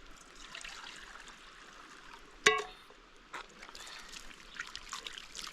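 Water pouring and trickling, as during a shower or a wash, with scattered small clicks. About two and a half seconds in there is one sharp, loud knock that rings briefly.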